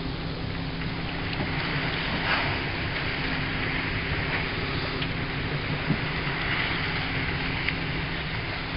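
A boat's engine running steadily under wind and water noise, with a brief knock about six seconds in.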